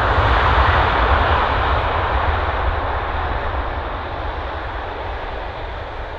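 An airliner's engines, loud and fading steadily as the aircraft moves away.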